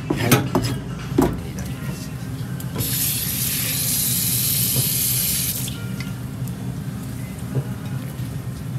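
Kitchen tap running into a stainless steel sink for about three seconds as fish is rinsed under the stream. A few sharp knocks come in the first second, and a steady low hum runs underneath.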